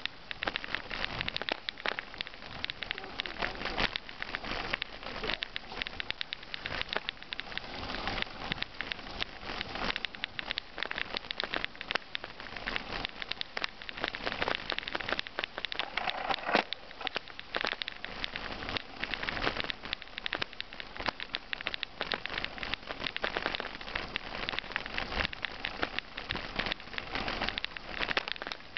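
Mountain bike tyres rolling over a gravel track: a continuous dense crackle of small stones crunching and ticking, with the rattle of the ride.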